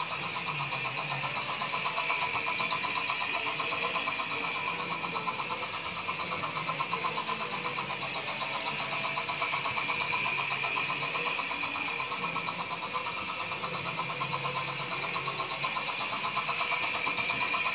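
Model steam locomotive 4983 Albert Hall running steadily round the track: its small electric motor whirring and wheels rolling on the rails, with a fast chuffing from the little piston chuffer in its tender.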